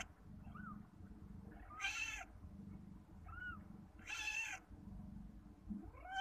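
Domestic cat meowing three times, roughly every two seconds, each call about half a second long, with two short, fainter arching chirps in between.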